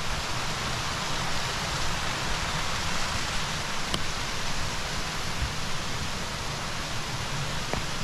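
Rocky mountain brook rushing over stones, a steady hiss of water.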